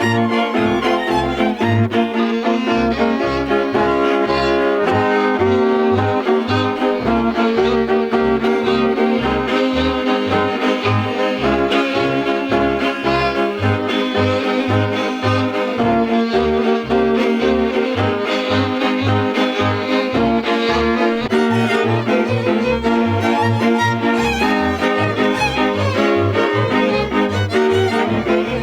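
Transylvanian string band music: a fiddle plays the melody over sustained bowed chords, while a double bass keeps a steady pulse of short bowed strokes.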